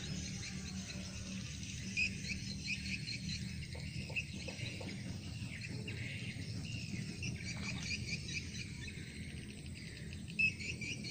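Insects chirping in a steady, rapidly pulsing chorus over a low steady hum, with two louder chirps standing out, about two seconds in and near the end.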